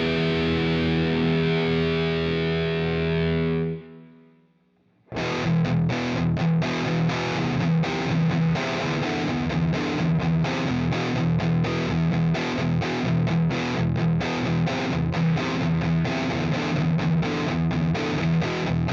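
Distorted electric guitar played through the Scuffham S-Gear amp simulator: a held chord rings and is cut off about four seconds in. After a second of near silence, a fast, rhythmic chugging riff on a low note begins and carries on.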